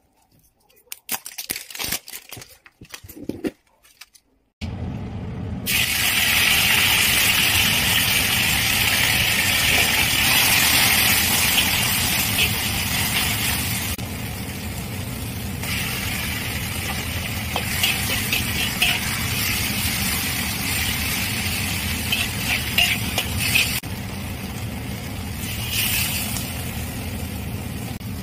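A few light clicks and taps as a jar lid is handled. Then kimchi and potato slices sizzle loudly in a hot iron wok, with scattered sharp spatula scrapes and knocks, over a steady low drone; the sizzle eases somewhat about halfway through.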